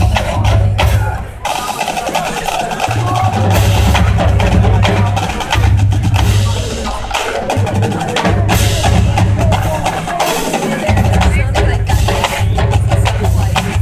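Marching band playing, brass over a drumline with heavy bass drum and sharp percussion hits; the low bass drops out briefly a few times.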